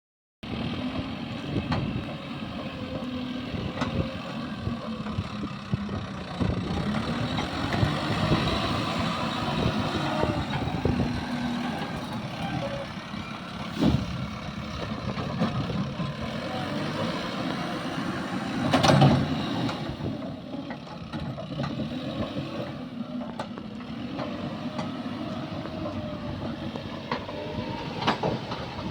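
Diesel engines of backhoe loaders and trucks running, their pitch rising and falling as they rev. There is a sharp knock about fourteen seconds in and a louder thump around nineteen seconds.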